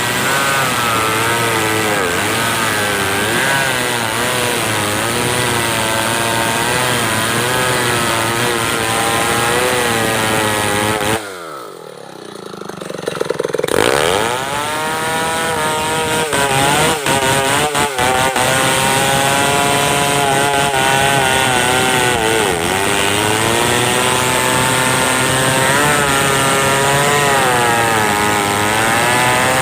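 Stihl 070 two-stroke chainsaw running at high revs, its pitch wavering as it works through wood. About eleven seconds in the throttle drops and the engine note falls away, then it revs back up some two seconds later and runs on under load.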